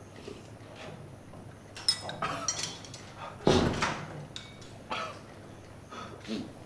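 Dishes and cutlery clinking at a dinner table, with a handful of short clinks and knocks on porcelain bowls and plates. The loudest comes about three and a half seconds in.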